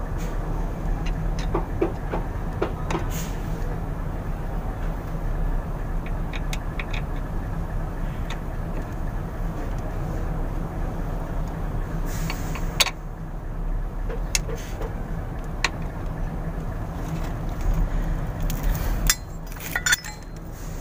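Light metallic clinks and taps, scattered and more frequent near the end, as a truck's propeller shaft flange is lined up and bolted to the differential pinion flange. A steady low machine hum runs underneath.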